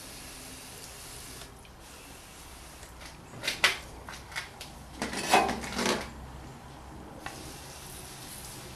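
Aerosol clutch-and-brake cleaner sprayed onto a car's oil pan, with clicks and clatter from handling the can: a couple of sharp clicks a few seconds in, then about a second of spray hiss and rubbing.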